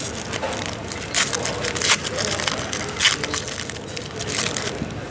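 Plastic foil trading-card pack wrapper being torn open and crinkled: a run of short rustling crinkles, the loudest about two and three seconds in.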